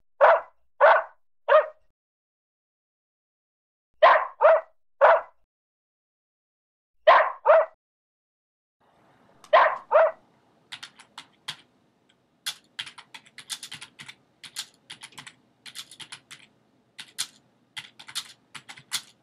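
A small poodle barking in four short runs of two or three barks each. From about ten seconds in, a computer keyboard is typed on, its keys clacking in irregular quick runs.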